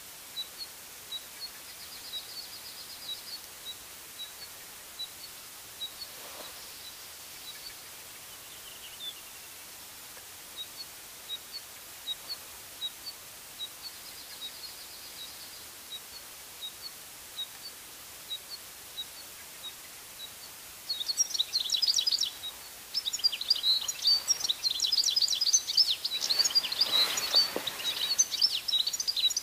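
European goldfinch singing: a fast twittering song of rapid high notes that starts about two-thirds of the way through and is by far the loudest sound. Before it, a single short high note repeats steadily, one or two a second.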